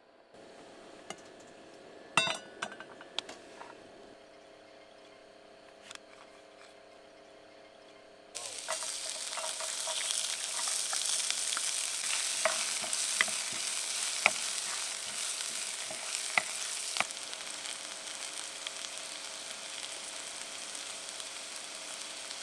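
Minced garlic and red chili frying in hot oil in a wok, stirred with a wooden spatula. A few light knocks come about two to three seconds in, then a steady sizzle starts suddenly about eight seconds in and carries on with small crackles and clicks of the spatula.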